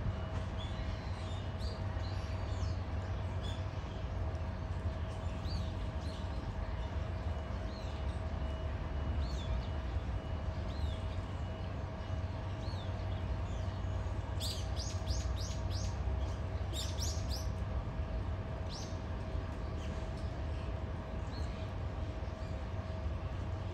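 Small birds chirping in short, scattered high calls, with a quick flurry of chirps about two-thirds of the way through, over a steady low rumble of background noise and a faint steady hum.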